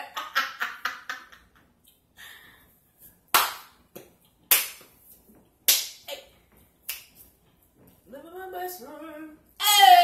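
Hand claps: four single sharp claps about a second apart, after a quicker flurry at the start. A woman's voice sings near the end, finishing with a loud note that falls in pitch.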